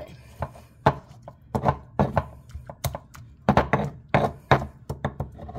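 Stone pestle pounding and mashing wet tomatoes, cilantro and garlic in a volcanic-stone molcajete: a run of dull, irregularly spaced knocks, about a dozen strokes.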